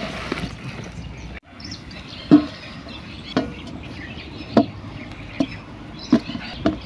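Sharp light taps and clicks on a stainless steel plate as rolled dough puris are picked up and laid down on it by hand. There are about six irregular knocks, and the first, about two seconds in, is the loudest.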